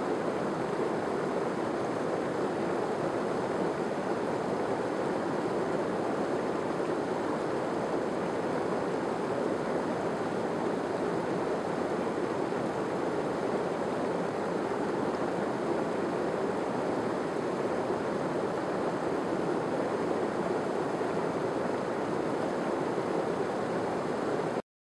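Mountain stream rushing and splashing over rocks in a steady, unbroken wash of water noise that cuts off suddenly near the end.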